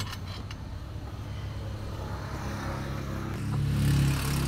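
A motor vehicle engine running with a steady low hum, growing louder near the end.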